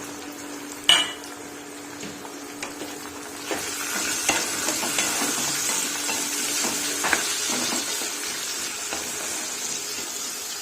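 Tomatoes frying in hot oil with onion and spices in a kadai, sizzling while a spoon stirs and clinks against the pan. There is one sharp clink about a second in, and the sizzle grows louder from about three and a half seconds in.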